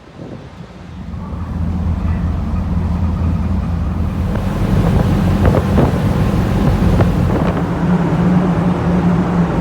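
Small 90cc motorcycle engine running steadily while riding, with wind noise on the microphone; it swells up over the first two seconds.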